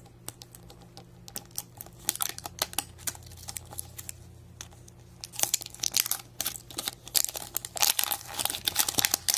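Printed plastic wrapper being torn and peeled off a plastic surprise egg: a run of crinkles and small tearing crackles, sparse at first and busiest in the second half.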